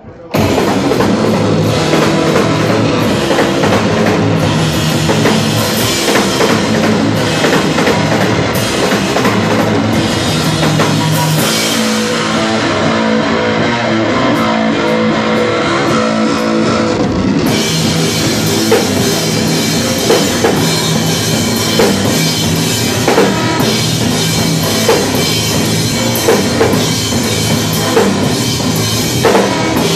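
Rock band playing loudly live, with the drum kit to the fore. It kicks in suddenly just after the start. The cymbals ease off for a few seconds midway and then come back in.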